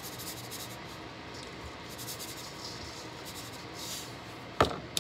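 Seasoning shaken from a plastic container onto chicken in a metal pan: repeated short, scratchy shakes. A sharp knock sounds near the end.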